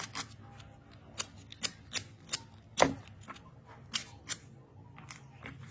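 A series of about ten short, sharp clicks and snips at irregular intervals, the loudest a heavier knock nearly three seconds in.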